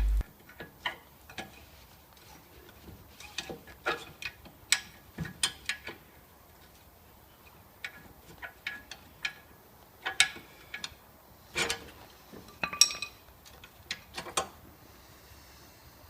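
Irregular metallic clicks and clinks of tools and brake parts being handled during rear brake pad removal. The strikes are scattered, a few of them with a short ring.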